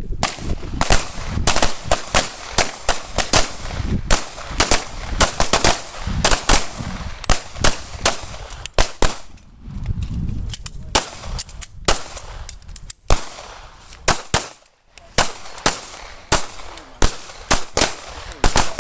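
Several pistols firing along a firing line: many sharp shots at an irregular, overlapping pace, about two or three a second. There is a brief lull in the firing a little after the middle.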